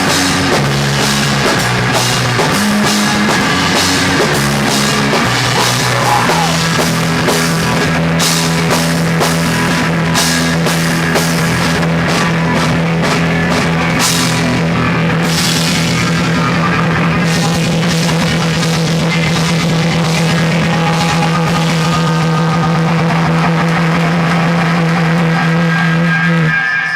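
Live rock band playing, drums and guitar. After about five seconds the band settles on one long held chord with cymbal crashes, letting it ring out as a song ending, and stops just before the end.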